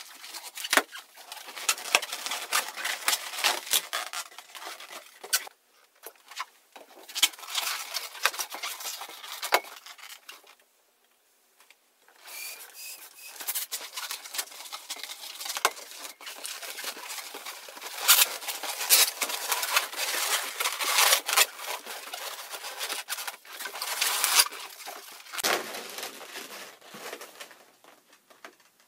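Latex modelling balloons being twisted and handled: rubbing and squeaking of the stretched rubber as the bubbles are twisted and locked. It comes in spells, with a pause of about a second and a half near the middle.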